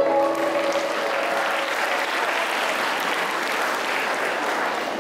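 Audience applauding in a hall, the clapping rising as the choir's final held chord dies away about a second in.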